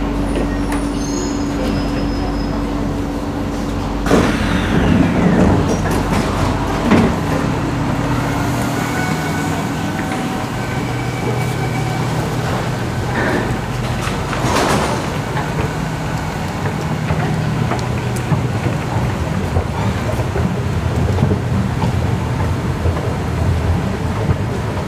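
Singapore MRT train standing at a station with a steady interior hum, then its doors sliding open about four seconds in. After that, station platform ambience: footsteps, clatter and a steady low machinery hum.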